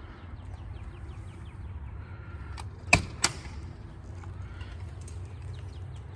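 A storm door and front door being opened: sharp latch and handle clicks about three seconds in, the second one loudest, over a low steady rumble.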